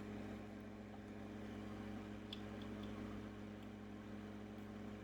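Steady low electrical hum from the opened monochrome CRT monitor running, with a few faint clicks about two and a half seconds in.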